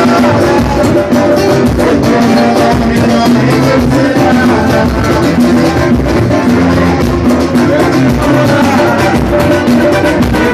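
Live samba played by a small group: percussion from a surdo, hand drums and pandeiros with an acoustic guitar, and voices singing along over a steady beat.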